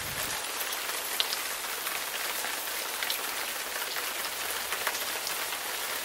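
Steady rain falling, an even hiss with scattered single drops ticking close by.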